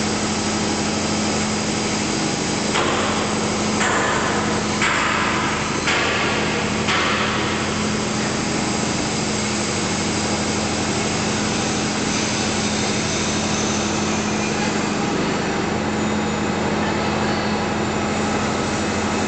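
Steel plate rolling machine running as it bends a thick steel plate into a cylinder: a steady mechanical hum with a constant low drone. About three seconds in come five louder noisy surges, roughly one a second.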